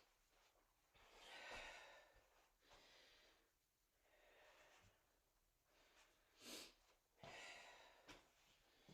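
Faint breathing: a series of short, breathy inhales and exhales every second or two as a person catches their breath after a cardio interval, with one sharper breath about six and a half seconds in.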